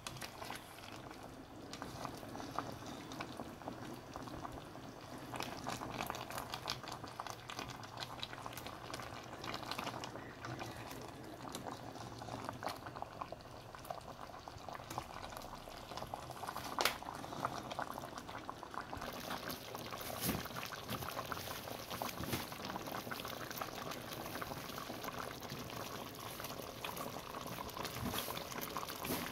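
Pot of chicken curry boiling, a steady crackle of bubbles bursting in the sauce, with one sharp click past the middle.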